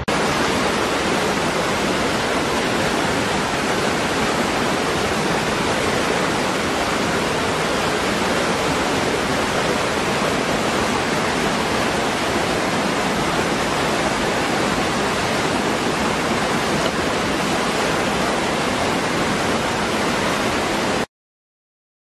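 Steady rushing roar of falling water from a waterfall, an even wash of noise with no rhythm or tones, cutting off suddenly about a second before the end.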